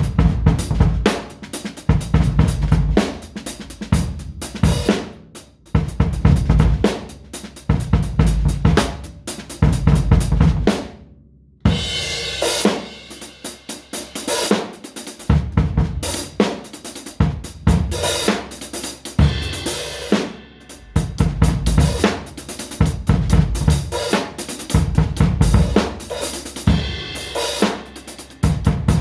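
Drum kit played in busy, loose patterns: bass drum, snare, hi-hat and cymbals. There is a short break about eleven seconds in, after which the playing starts again with cymbals.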